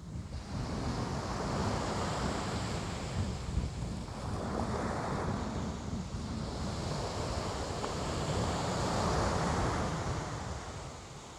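Ocean waves breaking and washing ashore in slow swells that rise and fall every few seconds, with a low rumble of wind on the microphone.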